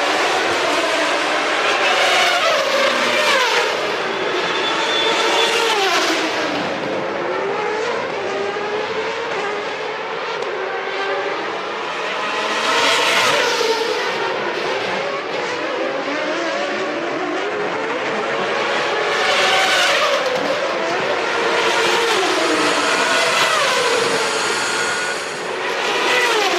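Several 1993 Formula One cars' high-revving racing engines passing one after another. Their pitch rises and falls as they accelerate and shift, with several engines heard at once and louder swells as cars go by.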